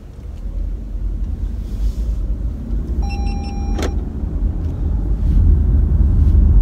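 Toyota Crown Hybrid pulling away, heard from inside the cabin: a low road rumble building steadily as the car gathers speed. About three seconds in, a short electronic chime sounds and ends with a click.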